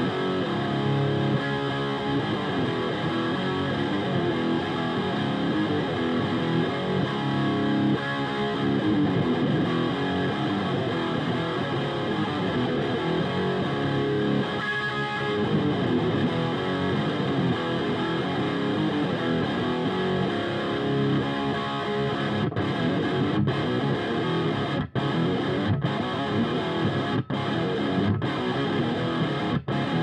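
Carvin DC727 seven-string electric guitar with Bare Knuckle BlackHawk pickups, played through a Diezel VH4 amp's channel 3 and miked at the speaker cone with an SM57, with no pedals or noise gate: dense, distorted metal riffing. Near the end the playing is broken by several short, sudden stops between chords.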